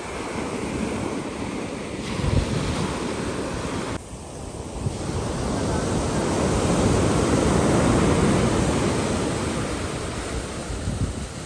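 Sea waves surging and breaking, with wind buffeting the microphone. The rush drops abruptly about a third of the way in, swells to its loudest past the middle, then ebbs away.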